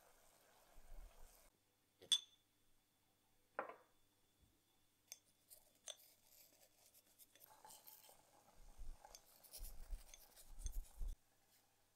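Faint kitchen handling sounds: a sharp click from the glass jar, then a wooden spoon scooping dry loose-leaf Assam tea with crisp crunchy ticks. In the second half, spiced water simmers softly in a saucepan as the leaves go in, with a few low knocks.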